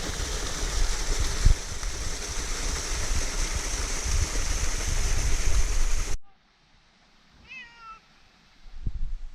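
Wind noise on the microphone for about six seconds, cutting off abruptly; then a domestic cat gives one short meow.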